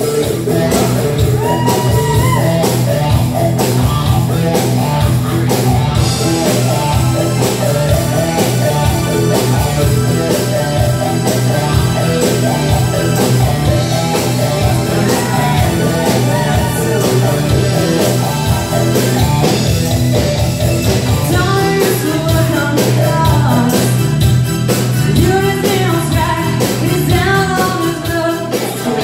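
Live rock band playing a full-band arrangement, with drum kit, keyboards and a woman singing lead.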